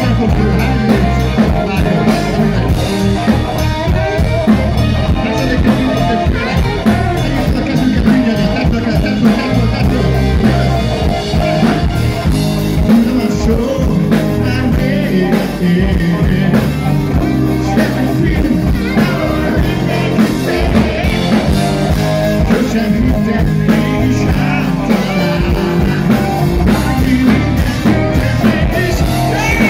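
A live band playing a song, with a male lead singer over drum kit, bass guitar and keyboards.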